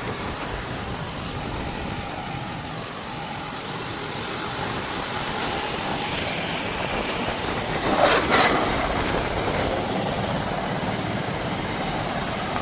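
Petrol engine and high-pressure pump of a sewer-jetting machine running steadily during a test, with a brief louder rush about eight seconds in.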